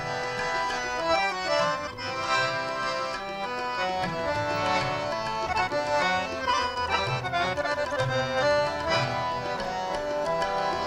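Two harmoniums playing the melody of a kirtan shabad as an instrumental interlude, with tabla keeping the rhythm underneath.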